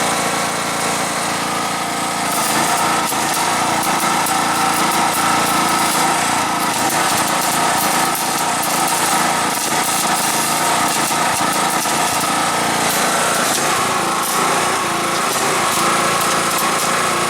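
Electric arc welding: a steady buzz with dense crackling.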